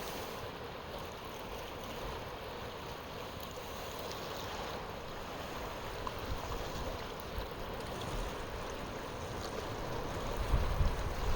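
A steady wash of moving water with wind. Near the end, gusts buffet the microphone in a low rumble.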